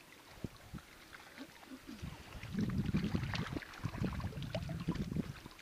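Water splashing and sloshing as a seine net full of vendace is hauled in by hand through the water, growing louder about two seconds in, with scattered small knocks and splashes.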